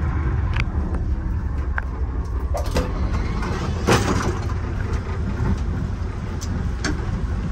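Amtrak Amfleet passenger coach running at speed, heard from its end vestibule: a steady low rumble with scattered clicks and a louder knock about four seconds in.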